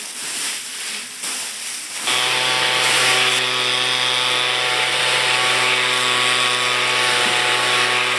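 Dry fallen leaves rustling and crunching underfoot, then about two seconds in a handheld leaf blower takes over, running steadily at a constant pitch: a motor hum over a strong rush of air.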